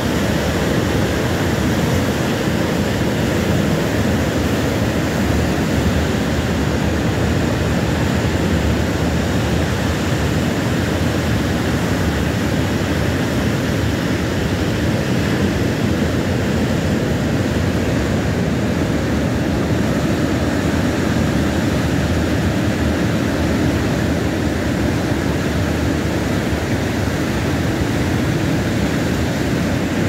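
Steady low roar of big ocean surf breaking over rocks, with no single crash standing out.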